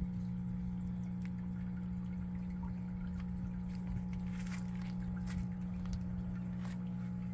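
Steady motor hum at a constant pitch, with a few faint clicks about halfway through.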